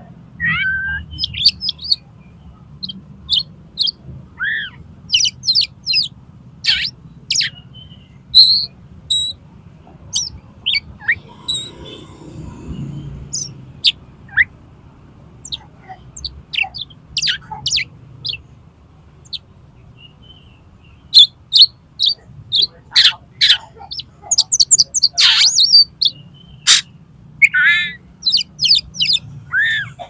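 Oriental magpie-robin singing: a long, varied string of short, loud whistled and chirping notes with a few falling slurs, coming fastest and densest in a run near the end. It is the full, aggressive challenge song of a roused male.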